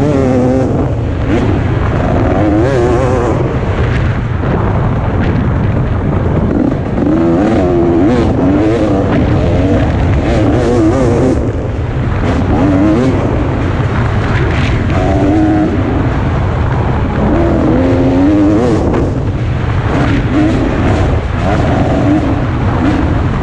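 Single-cylinder two-stroke engine of a 2017 KTM 250 XC-W dirt bike revving up and down over and over as it is ridden hard, with short knocks from the bike over bumps.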